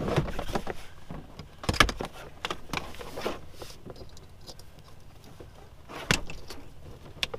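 Gear being handled in a small boat: sharp clunks about two seconds in and again about six seconds in, with lighter clicks and rattles between.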